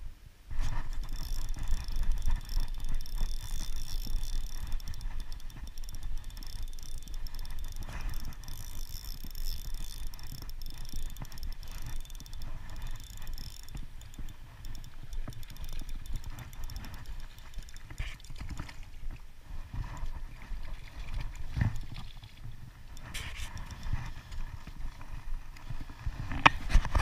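Spinning reel being cranked, its gears and handle rattling in rapid close ticks while a hooked trout is reeled in. Near the end come a few sharp knocks.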